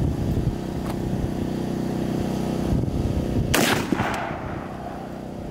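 A single shot from a Desert Tech MDR rifle in 5.56 mm, about three and a half seconds in: a sharp crack followed by an echo trailing off over about a second.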